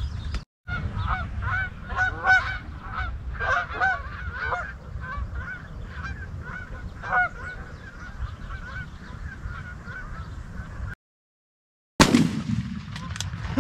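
A flock of geese honking, many short overlapping calls that thin out and fade after about eight seconds, over a low wind rumble. The sound cuts out completely for about a second near the end.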